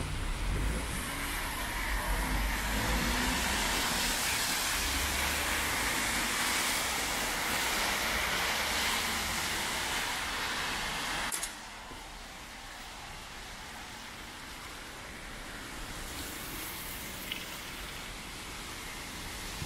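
Traffic on a rain-wet street: an even hiss of car tyres on wet road and falling rain, with a low rumble in the first few seconds. A little past halfway the level drops suddenly and the hiss carries on quieter.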